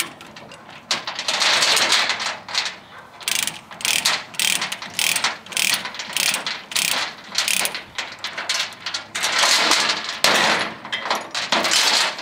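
Ratchet chain binder being cranked on a load chain: a run of ratchet clicks as the handle is swung back and forth, with the chain rattling.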